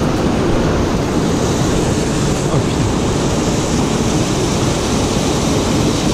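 Small waterfall in a mountain stream, white water rushing and churning steadily into the pool below, close by.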